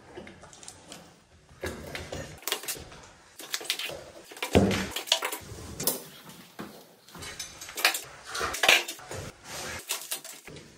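Irregular clatter of pipe work by hand: knocks, clinks and scrapes as a white plastic central heating pipe and a green-handled pipe bending tool are handled and bent on a concrete floor. There is a heavier knock a little before the middle.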